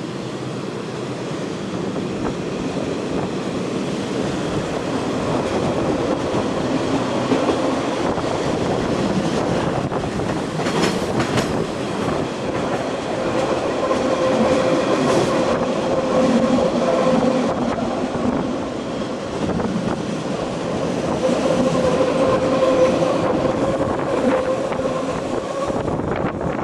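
Metre-gauge Matterhorn Gotthard Bahn train running along the track, heard from a carriage window: a steady rumble and clatter of wheels on rails. A faint whine comes and goes in the second half, and there are a couple of sharp clacks around the middle.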